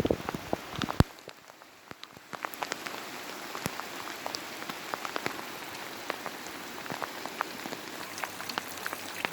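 Hail and pouring rain falling together: many sharp, irregular ticks of hailstones striking over a steady hiss of rain. There is a sharp knock about a second in, after which the hiss dips for a second or so before coming back.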